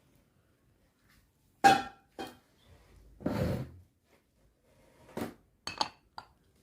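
Kitchenware being handled: a sharp ringing clink, then a second one just after, a brief scrape, and several lighter clinks and taps near the end.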